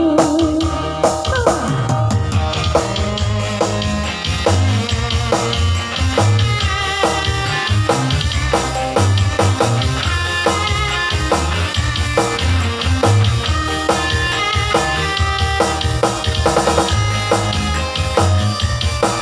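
Instrumental band music with a steady drum-kit beat and bass, and no singing; a sung note slides down and fades in the first couple of seconds.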